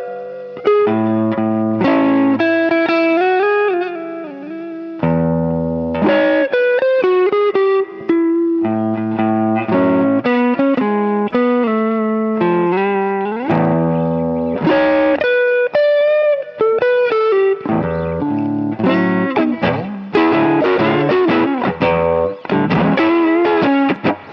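Electric guitar playing blues lead licks through a slightly overdriven tone, with string bends, single-note runs and occasional chords, in short phrases.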